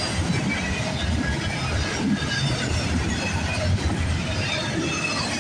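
Double-stack intermodal well cars of a CSX freight train rolling past at track side: a steady rolling rumble of steel wheels on rail, with faint high-pitched wheel squeals now and then.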